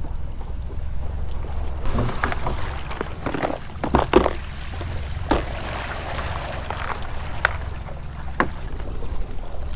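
Clear plastic tackle tray handled and opened: a scattered run of sharp plastic clicks and clacks from its lid, latches and the tackle inside, loudest about four seconds in, over a steady low rumble.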